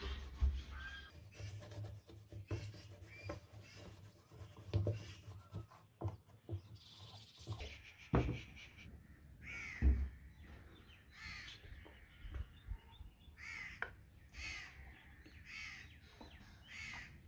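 Crows cawing over and over from about halfway through, many short harsh calls. Before that, a cloth rubbing wax onto a fiberglass mould, with a few knocks and two low thumps as things are set down.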